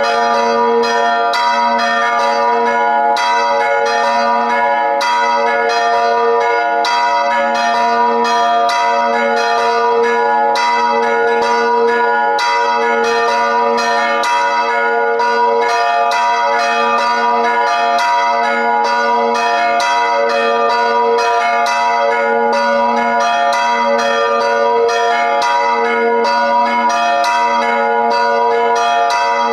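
Three hand-rung church bells pealing together in a festive bell concert. The strikes come several times a second, steadily and overlapping, and the tones ring on between them.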